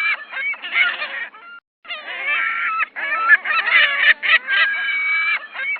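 A flock of seagulls calling: loud, harsh honking and laughing cries, overlapping, with the recording looping every few seconds.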